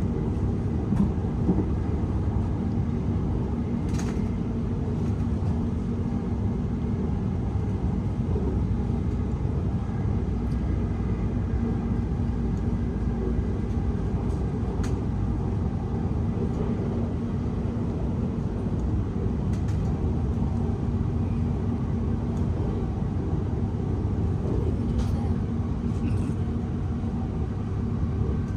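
Interior running noise of a Class 701 Aventra electric multiple unit under way between stations: a steady low rumble of wheels on rail and body noise, with a few faint clicks.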